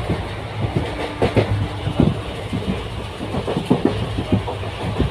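Moving passenger train heard from inside the coach at an open barred window: a steady low rumble with the wheels clattering and knocking irregularly on the track.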